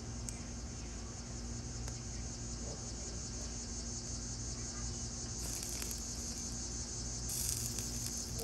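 Steady high-pitched chorus of insects chirring, growing louder near the end, over a faint low steady hum.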